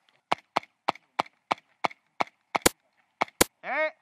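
Airsoft gun firing single shots in steady succession, about three a second, each a sharp crack. Two louder cracks come near the end.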